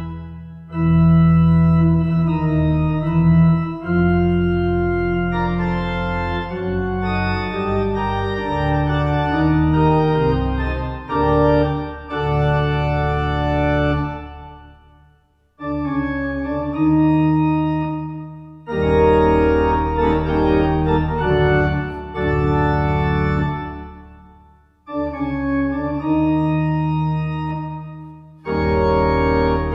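Organ music: sustained chords over a deep bass line, played in phrases with a few brief breaks.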